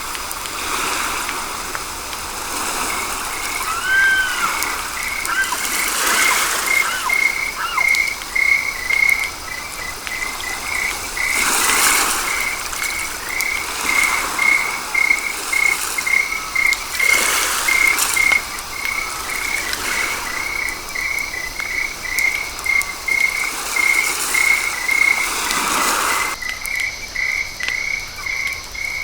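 A frog calling in a steady train of short, high croaks, about two a second, starting a few seconds in, over swells of rushing noise every few seconds.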